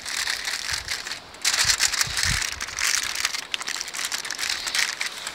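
Aluminum foil crinkling and crackling as it is folded and crimped shut around a roast, louder from about a second and a half in.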